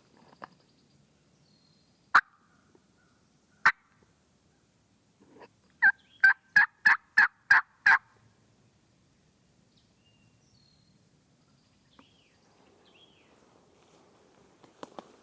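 Turkey yelping: two single sharp clucks, then a run of about seven evenly spaced yelps lasting two seconds.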